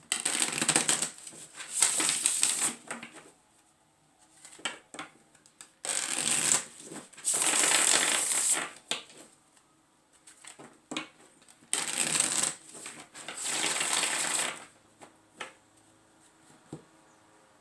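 A deck of tarot cards being shuffled in three rounds, each made of two rustling shuffles about a second long, with quiet pauses between the rounds.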